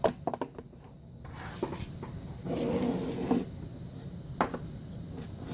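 Light clicks and knocks from a vintage Sargent pin-tumbler lock being handled as it is opened up for disassembly after picking. A few separate sharp clicks are heard, with a short stretch of scraping noise about two and a half seconds in.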